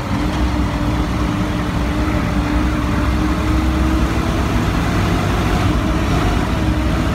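Large truck's engine running as it drives, heard inside the cab: a steady drone over low road rumble.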